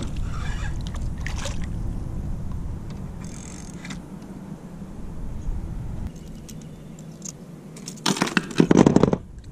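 A small bass splashing at the surface beside a plastic kayak as it is reeled in and swung aboard, with water spattering. Near the end comes a loud burst of rustling and knocking as the fish and lure are handled over the hull.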